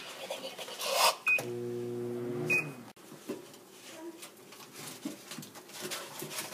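Microwave oven being started: a knock, then a short high beep as it starts, its steady low hum for about a second and a half with a second beep partway, then the hum cuts off suddenly.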